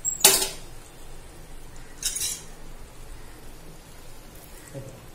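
Metal hand-press lemon squeezer clanking sharply once about a quarter second in, then a shorter, softer noisy sound about two seconds in as half a lemon is pressed over the pan. Under it, a faint steady sizzle from the chicken simmering in the kadhai.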